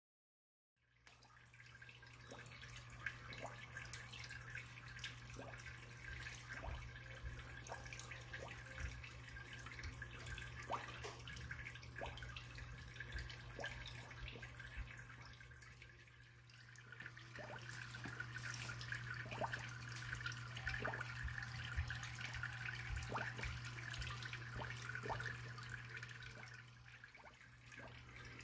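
Water splashing and trickling into an aquarium tub from the filter and pump circulation, with scattered drips and a steady low hum underneath. It starts about a second in and dips briefly midway.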